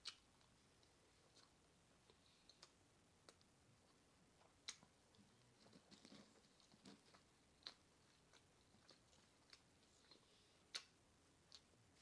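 A person chewing a mouthful of bacon cheeseburger close to the microphone: faint, irregular wet lip smacks and mouth clicks, with a sharper smack every few seconds.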